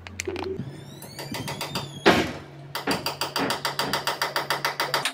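A drill running, a steady hum from about half a second in. It is broken by a loud burst near two seconds, then rapid, evenly spaced clicking at about seven clicks a second.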